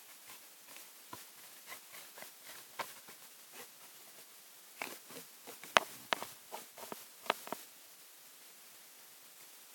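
Small scissors snipping through a Pokémon trading card: a run of short, crisp cuts, the sharpest ones about five to seven and a half seconds in.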